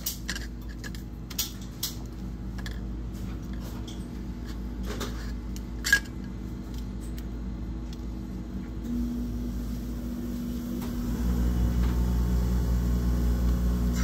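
Small clicks and taps of handling on a workbench, with one sharper click about six seconds in. From about nine seconds a steady machine hum comes in and grows louder a couple of seconds later.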